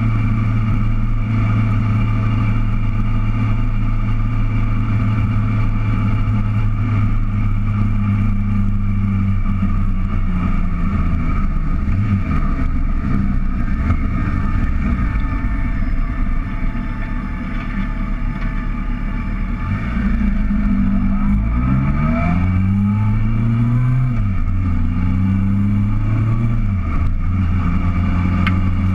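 Motorcycle engine heard from the rider's seat, running steadily at first. A little past halfway it drops to a quieter, lower note, then climbs twice in rising pitch as it accelerates through the gears, and settles into steady running.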